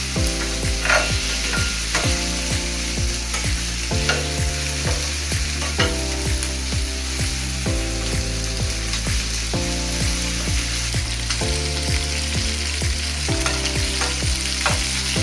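Marinated chicken wings sizzling in a hot double grill pan, a steady hiss, over background music with a regular beat and chords that change about every two seconds.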